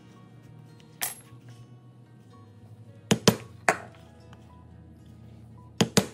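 Mallet strikes on a 4 mm leather stitching chisel, driving it through the leather to punch stitch holes. There is one sharp hit about a second in, three quick hits around three seconds, and two or three more near the end, each with a short metallic ring.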